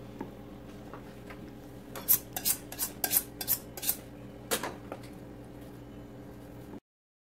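Kitchen knife being honed on a steel: about seven quick metallic strokes in two and a half seconds, sharpening a blade too dull to cut the chicken. The sound cuts off abruptly near the end.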